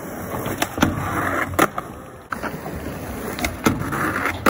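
Skateboard wheels rolling on smooth concrete, with several sharp clacks of the board popping and landing, and a truck grinding along the edge of a ledge near the end.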